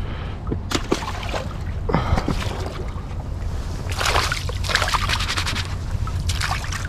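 Seawater splashing as gloved hands plunge and sweep through it, in bursts about four seconds in and again near the end, over a steady low rumble of wind on the microphone.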